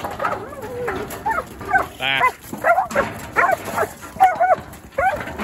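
Working sheepdog barking repeatedly, a string of short sharp barks every half second or so, as it works sheep along a narrow race to push them forward.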